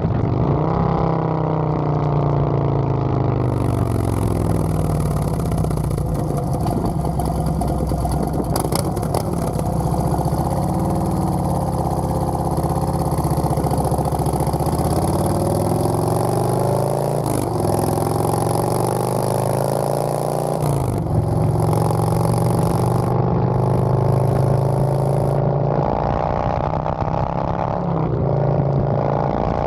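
Harley-Davidson touring motorcycle's V-twin engine running while riding, its pitch falling and rising several times as the revs change, with a couple of brief breaks. A high hiss comes and goes over it.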